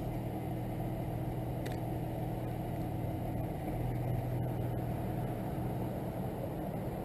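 An engine idling close by: a steady low hum that swells slightly about four seconds in.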